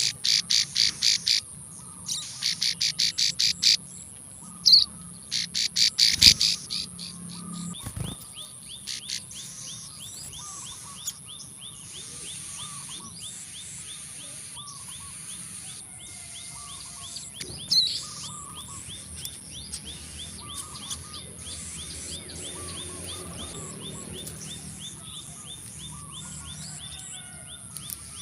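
Plain prinias (ciblek sawah) calling, adult and young. A loud series of rapid, sharp repeated notes fills the first six seconds, followed by a long run of fainter fast ticking and short chirps. A steady high-pitched whine runs underneath.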